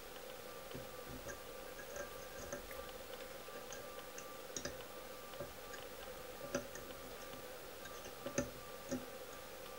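Faint scattered ticks and clicks of fingers handling thread and materials at a fly-tying vise, with a few sharper clicks in the second half, over a steady faint hum.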